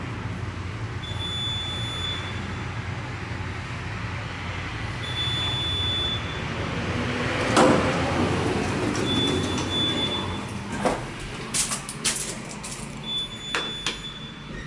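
Steady hum of a traction elevator arriving, with a short high beep repeating about every four seconds. The elevator's sliding doors open with a loud rush a little over halfway through, followed by a run of sharp clicks near the end.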